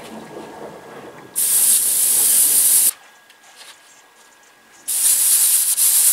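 Airbrush spraying paint in two bursts of steady hiss: the first lasts about a second and a half and starts over a second in, the second starts near the end.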